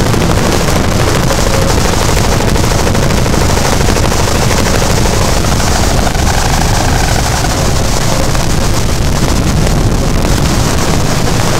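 Harsh noise music made with electronics: a loud, unbroken wall of distorted noise, heaviest in the low end, with a dense rapid crackle throughout.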